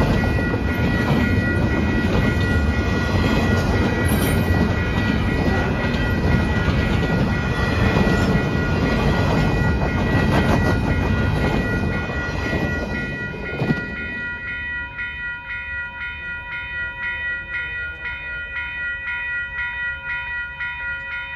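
Double-stack intermodal freight cars rolling through a grade crossing, a loud steady rumble and clatter of wheels on rail, over the ringing of the crossing bell. About 13 seconds in, the last car passes and the rumble falls away, leaving the crossing bell ringing about twice a second.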